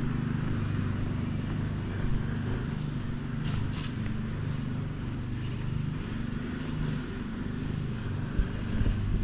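Pressure-washer rig's engine running steadily, with a couple of light knocks near the end.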